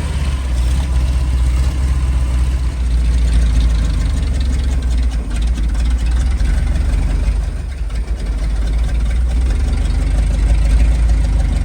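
A 1975 Ford F250's engine idling steadily, running with the belt on to pressurize the power steering system and test the newly fitted return line.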